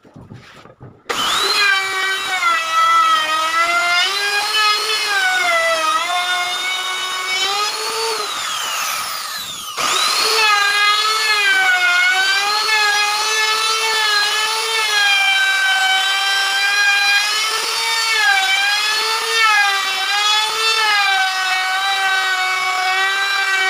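Handheld trim router starting up and cutting along the edge of a wooden cabinet door: a high motor whine whose pitch dips and wavers as the bit takes the wood. About eight seconds in it is switched off and winds down, then it starts again and keeps cutting.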